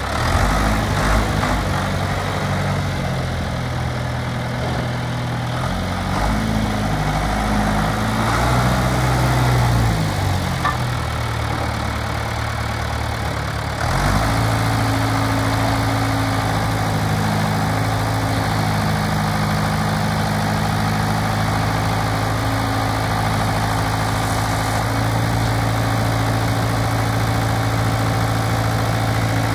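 John Deere 2850 tractor's four-cylinder diesel engine running, its note wandering up and down for the first half. After a sudden change about halfway through, it idles steadily.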